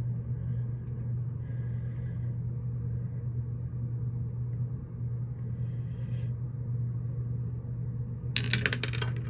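A steady low hum with faint hiss behind it. A few brief soft sounds come partway through, and a quick cluster of sharp clicks of handling noise comes near the end.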